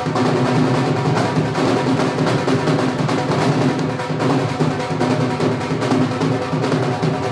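Dhol drums beaten in a fast, continuous rhythm.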